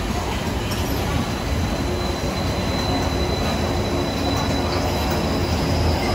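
Disneyland Mark VII monorail train passing close by on its concrete beam: the steady running noise of its electric drive and rubber tyres, with a thin high whine held over it from about a second in.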